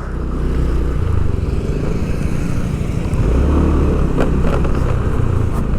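A vehicle engine running steadily as it moves off along a city street, with road noise.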